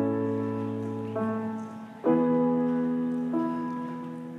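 Piano playing slow, held chords. A new chord is struck three times, and each one fades as it sustains.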